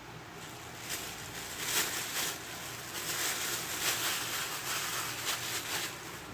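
Thin plastic grocery bag crinkling and rustling as it is handled and bunched up by hand, in irregular bursts starting about a second in and stopping near the end.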